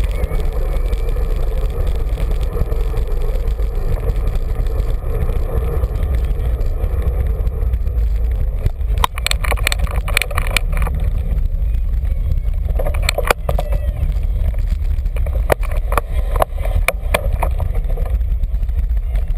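Wind buffeting and road rumble on a bicycle-mounted camera's microphone while riding in traffic. From about nine seconds in, a run of sharp clicks and rattles.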